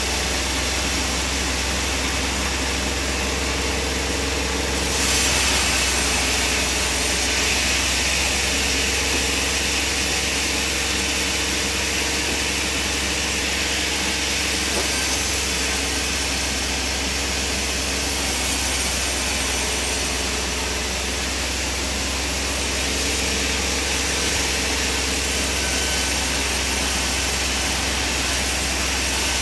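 Sawmill machinery running with a steady mechanical drone and low hum, briefly louder about five seconds in.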